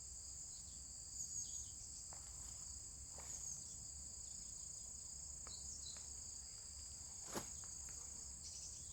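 A steady, high-pitched chorus of crickets and other singing insects, with a few soft clicks and one sharp click about seven seconds in.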